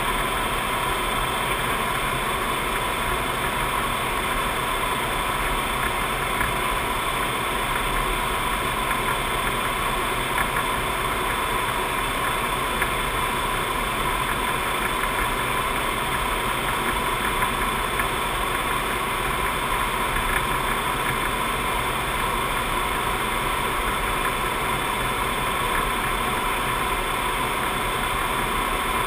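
Steady cockpit noise of a C-5 Galaxy in cruise flight: an even rush of air and engine drone with a constant hum, unchanging throughout.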